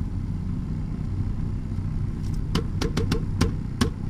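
Steady low vehicle rumble, as of a car driving. From about two and a half seconds in comes a quick run of about six sharp clicks or knocks within a second and a half.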